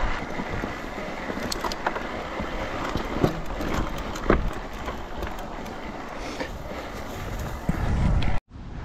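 Electric mountain bike being ridden over rough ground: steady tyre and wind noise with a few sharp knocks and rattles from the bike. The noise swells into a low rumble near the end, then cuts off suddenly.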